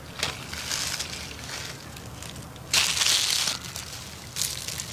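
Crunching of a crisp fried chicken drumstick coating being bitten and chewed, in several crackly bursts, the loudest lasting under a second about three seconds in.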